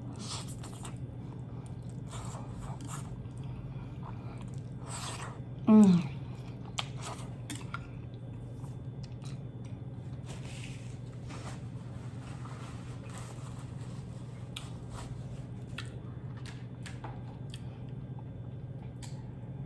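Close-miked chewing of Buldak carbonara ramen noodles, with wet mouth clicks and smacks over a steady low hum. About six seconds in comes a short, loud vocal sound that falls in pitch.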